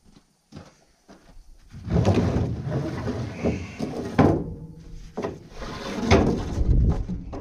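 A run of knocks and clatter as boards and other work materials are picked up and moved, starting about two seconds in, with several sharp knocks and a dull rumble under them.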